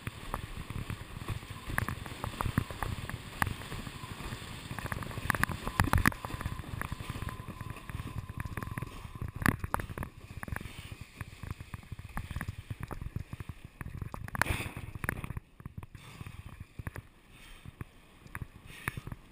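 Wind rushing past a GoPro and a windsurf board running over chop, with frequent knocks and crackles from the board and the camera housing. It eases somewhat in the last few seconds.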